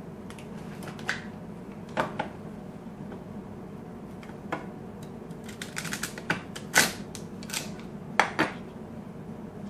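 Scattered light clicks and knocks of kitchen handling: utensils and cut vegetables being moved about, with a quicker run of clicks about six to seven seconds in.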